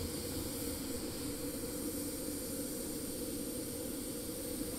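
Steady hiss of steam from a miniature live-steam locomotive standing still, venting in a plume from its stack.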